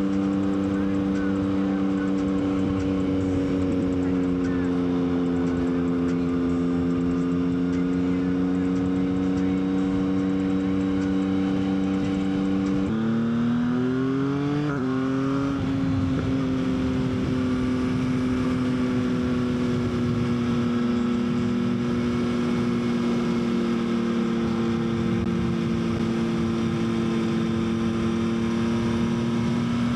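Yamaha XSR900's inline-three engine running at steady cruising revs under a rush of wind noise. About 13 seconds in, the revs climb twice in quick succession, then settle back to a steady cruise.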